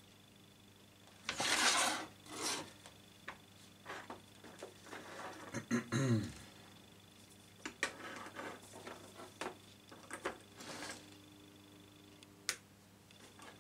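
Handling noises on a wooden workbench: the wire stand of a wood-burning pen is bent into shape and the pen is set down in it. There are rubbing and scraping sounds, a brief falling squeak about six seconds in, and a few light clicks.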